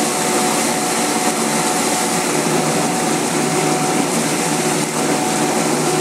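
DZ-1 radish washing machine running, its 200 W motor spinning two wet brush rollers that scrub a daikon radish held against them: a steady mechanical whir with a brushing hiss and a faint steady whine.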